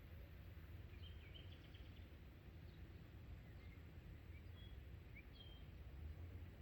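Faint bird chirps, a short cluster about a second in and a few more near the end, over a low steady rumble, close to silence.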